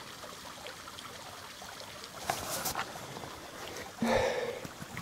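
Small stream trickling steadily, with a few light handling clicks around two and a half seconds in and a brief louder noise about four seconds in.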